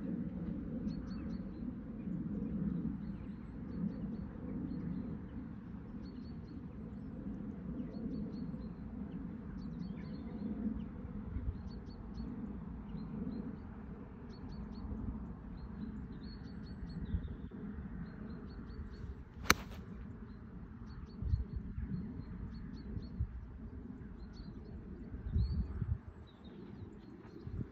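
Small birds chirping over a steady low outdoor rumble; about two-thirds of the way in, a single sharp click of an iron striking a golf ball.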